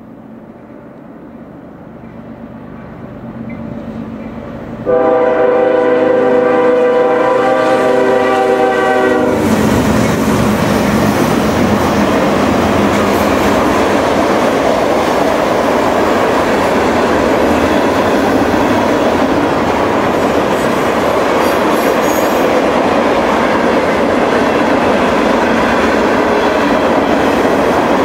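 Freight train with diesel locomotives approaching and sounding its horn in one long blast of about four seconds, then passing close by with a loud rumble and the clatter of wheels over rail joints.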